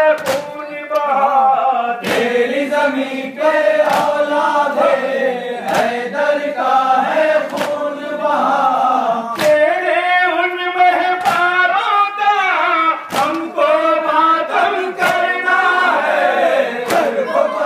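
A group of men chanting a lament in unison, with a loud, even slap of hands beating chests together (matam) about every two seconds.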